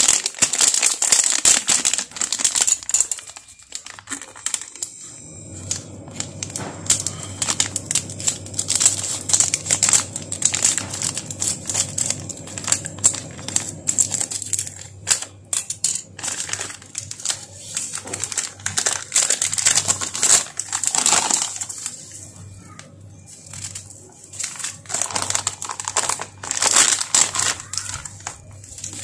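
Plastic and foil packaging crinkling and rustling as it is handled and opened, with scissors cutting into the foil pouch. A low steady hum sets in about five seconds in underneath the crackling.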